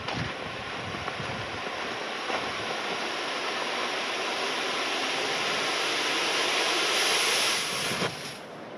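Snow avalanching off the roof of an indoor riding arena: a rushing rumble that builds for several seconds and stops abruptly near the end.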